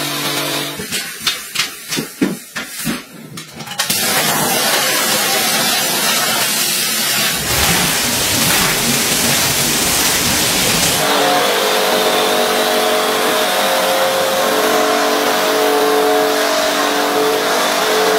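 Carpet-cleaning machinery: a steady hum, then about three seconds of knocks and clatters, then a long even hiss of a pressure washer's spray and a wet vacuum drawing water off the floor. From about two-thirds of the way in, a steady motor whine runs over the hiss.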